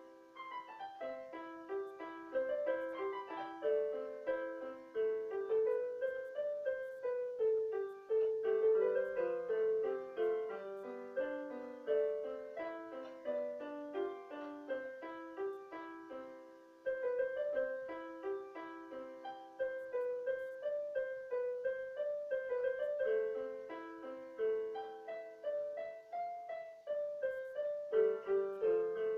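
Improvised piano music played on an electric keyboard: a continuous flow of overlapping notes and chords in the middle register. Past the middle the notes die away briefly before a new phrase begins.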